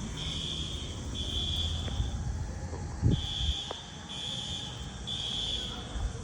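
Building fire alarm still going off: a high beep sounding three times, about one a second, then a pause before the next group of three (the temporal-three evacuation pattern). A low thump about halfway through.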